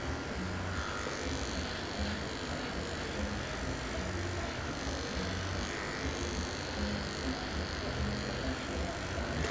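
Corded electric hair clippers running steadily, held against the head as they cut hair close to the scalp.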